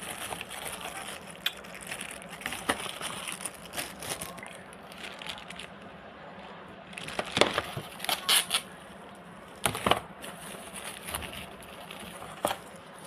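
Handling noise: a string of irregular clicks, crackles and knocks as things are picked up and moved by hand, with the loudest knocks a little past the middle and again about ten seconds in.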